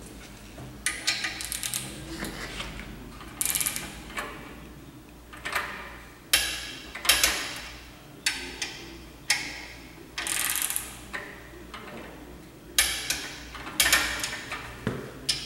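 Ratchet head of a long-handled wrench clicking in short bursts about once a second as it is swung back and forth, running down the main bearing cap bolts on an engine block.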